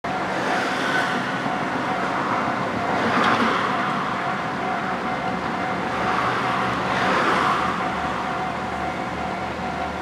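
Japanese level crossing alarm sounding its steady tone while a KiHa 40-series diesel railcar set approaches. The diesel engines run and the wheels rumble over the rails, and the low engine rumble grows louder from about six seconds in.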